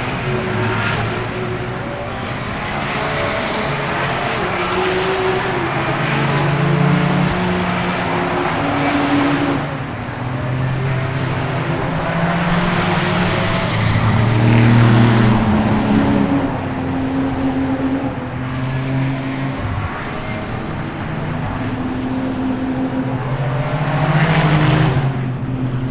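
A field of GT race cars passing in close succession, their engines at high revs, with several engine notes overlapping and rising and falling in pitch as each car goes by.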